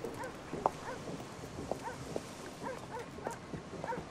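Animal calls: many short yelping cries, several a second at varying pitches, overlapping one another.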